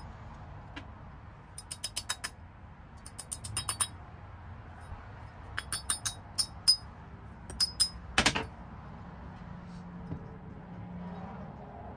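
Small steel parts clicking and clinking in quick runs of taps as the pin, nut and washer of a roller-bearing splitting maul head are fitted and worked with pliers. One louder clank comes about eight seconds in.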